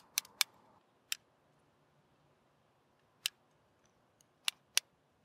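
Small metal spring clamp clicking as it is handled: a few short, sharp metallic clicks at uneven intervals, three close together at the start, one after about a second, one a little past three seconds in, and two near the end.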